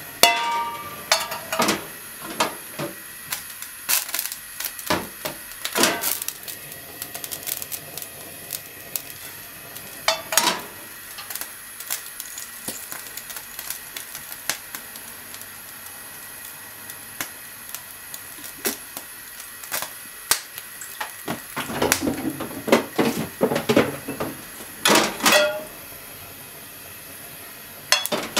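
A frying pan set down on a lit gas burner's metal grate, then scattered clicks, knocks and clinks of kitchen handling over a steady hiss. A dense run of clinks and knocks comes a little over 20 seconds in, while cooking oil is put into the pan.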